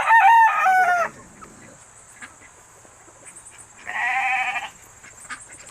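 Sheep bleating twice: one call in the first second and another, wavering, about four seconds in.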